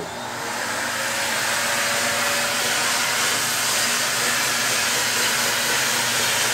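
Vacuum cleaner running with a steady rushing whine, its suction drawing air through a homemade wooden air engine to keep the flywheel turning. The sound builds over about the first second, then holds steady.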